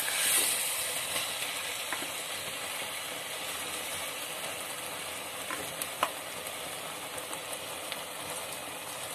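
Sugar syrup with ghee bubbling and sizzling steadily in a pot as boiled rice is added and stirred in with a wooden spatula, with a few light knocks of the spoon.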